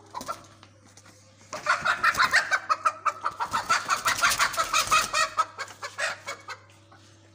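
A hen squawking loudly in a rapid, frantic run while a child grabs and holds it by hand. The outburst starts about a second and a half in and dies away after about six seconds.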